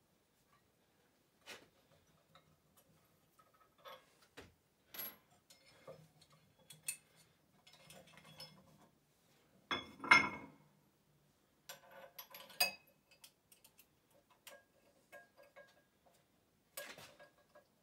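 Metal barbell weight plates and bar clinking and clanking as they are handled, with scattered light clicks and one much louder clank about ten seconds in.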